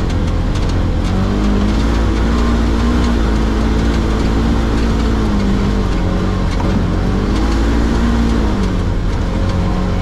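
A 2015 Polaris Ranger 900 XP side-by-side heard from inside its open cab while driving on rough ground. Its twin-cylinder engine runs under load, its pitch rising and falling several times as the throttle is worked. Light rattles and clicks come from the machine over the bumps.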